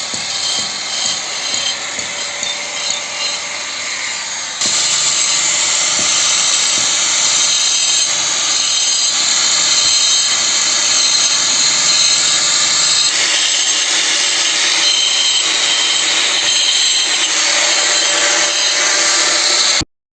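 A power tool cutting out a crack in a wall to widen it before sealing, running steadily and loud from about four and a half seconds in and cutting off sharply near the end. Before it starts there are quieter scraping and knocking sounds.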